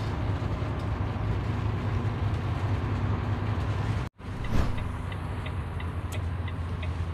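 Cab interior of a heavy vehicle driving on a wet highway: a steady low engine drone with a hiss of tyres on the wet road. The sound drops out for a moment about four seconds in, followed by a knock and a few light ticks.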